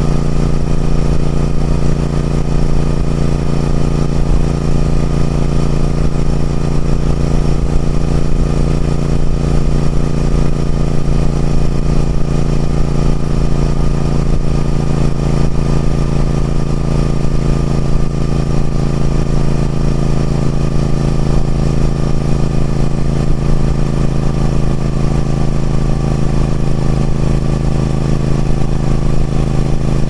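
Triumph Speed Twin's parallel-twin engine and exhaust running at a steady cruising speed. The note holds one even pitch without revving or gear changes.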